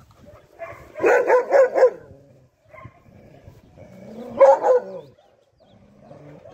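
Dogs barking: four short barks in quick succession about a second in, then another loud burst of barks around four and a half seconds in.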